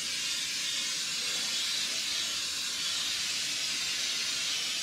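Oil being sprayed in a steady, continuous hiss onto the grates and inside of a new electric smoker, to season it.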